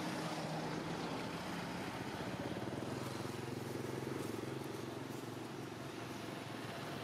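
A motor vehicle's engine running with a steady hum, its pitch dropping a little at the start and then holding.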